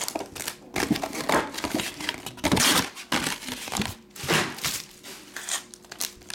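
Foil trading-card pack wrappers crinkling and rustling in the hands as packs are handled, in irregular bursts.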